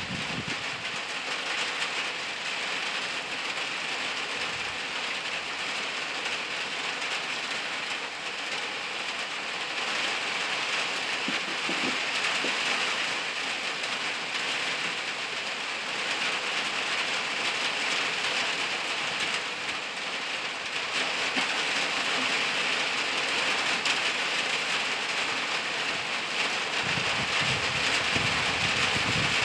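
Steady rain shower falling on leafy undergrowth, an even hiss throughout; a low rumble comes in near the end.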